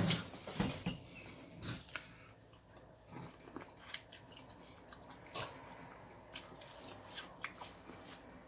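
Close-up eating sounds from a seafood boil: scattered wet clicks and smacks of chewing and handling food, loudest in the first second, then sparser.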